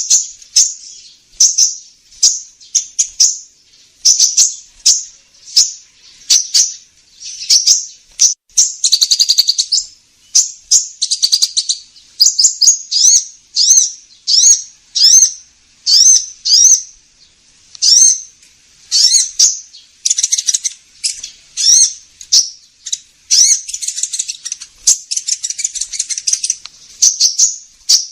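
High, thin sunbird chirps, the kolibri ninja's call, given several a second in an unbroken run, with short buzzy trills every few seconds. It is a bird-trapping lure call meant to draw in sunbirds.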